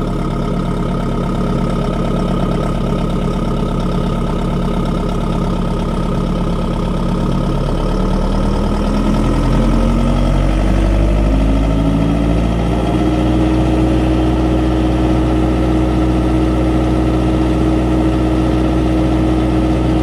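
Generator set engine running at its warm-up idle of about 1200 rpm. From about eight seconds in, it rises smoothly over several seconds to its rated speed of about 1800 rpm and holds there.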